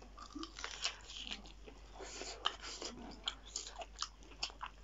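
Close-miked eating: crunchy biting and chewing of fried chicken feet, a run of sharp, irregular crackles.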